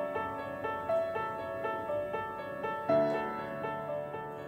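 Background piano music: a gentle melody of evenly paced notes, with a louder chord about three seconds in.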